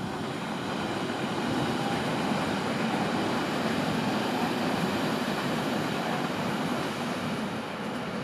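Berlin S-Bahn electric multiple unit running past on the track below and moving away: a steady rumble of wheels on rail, loudest around the middle and easing off slightly toward the end.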